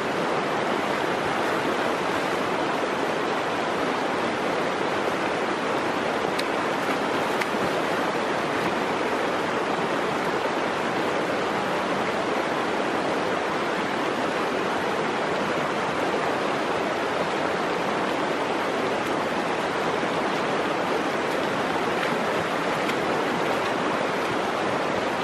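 Shallow, rocky creek running over stones: a steady rush of flowing water.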